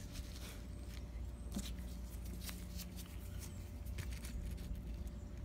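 Faint scattered metallic ticks of a steel pick and small valve keepers being handled at a valve spring retainer, over a low steady hum.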